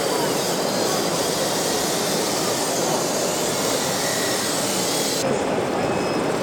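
Large-scale RC construction machines working: a steady mechanical whir and rumble with faint motor whine, the highest hiss cutting off abruptly about five seconds in.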